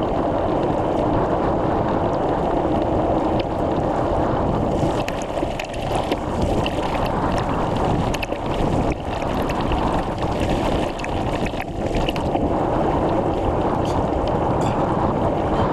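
Wind buffeting the microphone: a steady rush of noise. Scattered light clicks and rattles come through between about five and twelve seconds in.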